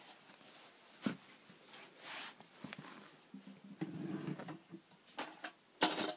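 Handling noise: a few sharp knocks and clicks with some rustling as toys and the camera are moved about. There is one knock about a second in and a louder pair near the end, with a faint low murmur around four seconds.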